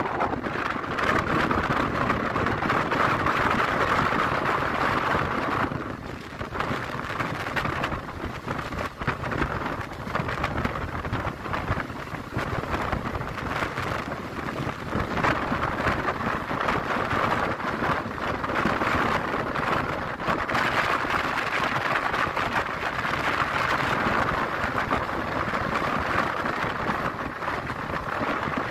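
Indian Railways passenger train running at speed, heard from the side of the coach: a steady rush of wind and wheel-on-rail running noise, with wind on the microphone. It dips somewhat about six seconds in and builds back up after about fifteen seconds.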